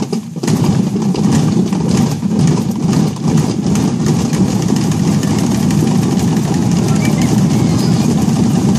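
Many children drumming together with sticks on plastic buckets and drums, a dense steady roll that starts just after a brief pause.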